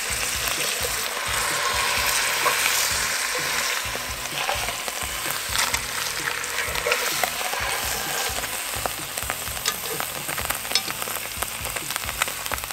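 Beef neck searing in hot oil in a cast-iron Dutch oven: a dense sizzle, strongest in the first few seconds, giving way to scattered spitting crackles as the meat is turned.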